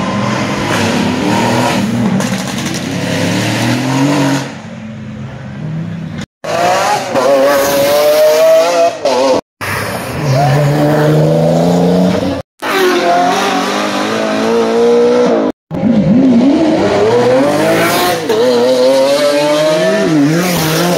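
Sports cars revving hard and accelerating away one after another, including a Mercedes-AMG and a Nissan 300ZX; the engine pitch climbs and falls with each rev. The sound breaks off abruptly four times as one car's pass cuts to the next.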